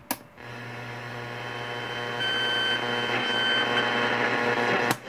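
A handmade ghost box (Frank's Box) switched on with a click, its speaker giving a steady electronic buzz and hiss that grows slowly louder, then cut off by another click near the end.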